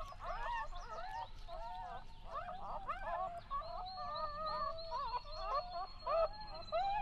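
A dense chorus of overlapping animal calls: many short, wavering, pitched cries, with a thin steady high tone joining about halfway through.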